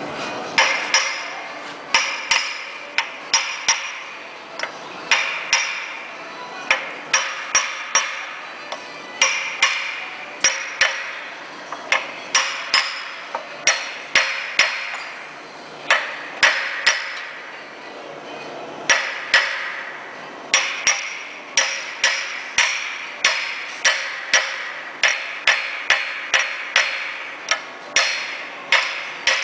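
Repeated hammer blows on the BRONTO E 1000 extruder's spindle assembly, tapping the steel shaft and barrel housing into place. The strikes come in runs, about one to two a second with short pauses between runs, each with a brief metallic ring.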